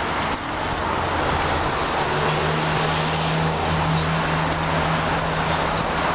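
Road traffic on a town street: a steady rush of passing cars, with a low engine hum coming in about two seconds in.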